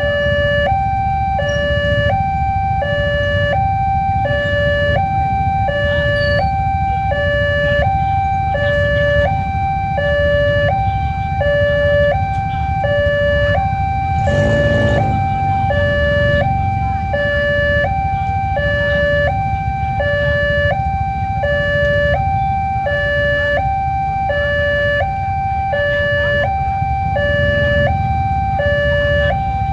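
Railway level-crossing alarm sounding its two-tone electronic warning, a high and a low tone taking turns about every 0.7 seconds, over the low rumble of waiting road traffic. About halfway through, a vehicle engine briefly revs up.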